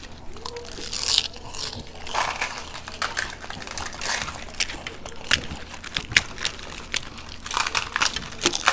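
Crisp puffed puri shells of giant fuchka cracking and crunching as they are broken open by hand and bitten, with many short, sharp crackles at irregular intervals.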